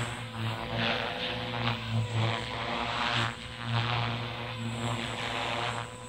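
A JR Forza 450 radio-controlled helicopter flying, its rotor and motor giving a steady hum that swells and dips in loudness as it manoeuvres.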